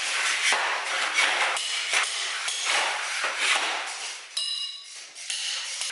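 A long-handled tool scraping and sweeping across a bare floor stripped of tile, in quick harsh strokes about twice a second. A short metallic ringing clink comes about four and a half seconds in.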